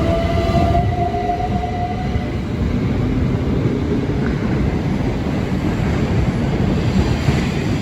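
Train moving through the station: a loud, steady rumble of wheels and running gear, with a few whining tones that fade out in the first two seconds.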